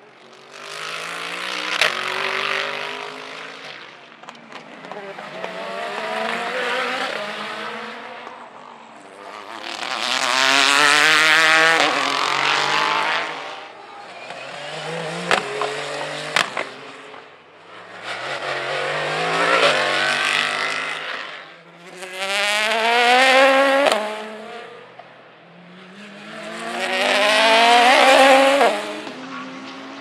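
Race cars, prototypes and GT cars, passing one after another at racing speed: about seven pass-bys, each engine note swelling and fading. Within each pass the engine pitch climbs as the car accelerates.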